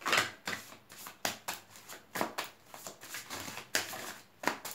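A deck of I Ching del amor oracle cards being shuffled by hand: a run of about a dozen quick papery swishes, the first the loudest.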